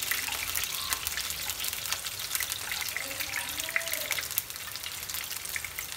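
Garlic cloves frying in a little oil in a stainless steel pan: a steady crackling sizzle.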